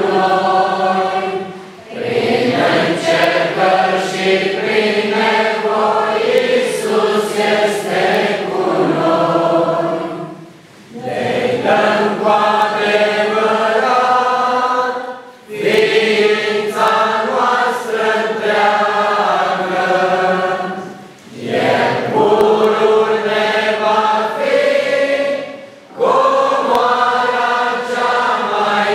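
Church congregation singing a hymn together, many voices in sustained phrases of a few seconds each, with short breath pauses between the lines.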